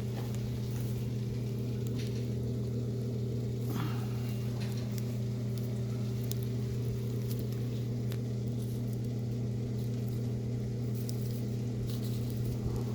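Wood fire burning in a rocket heater with scattered faint crackles and pops, over a steady low hum.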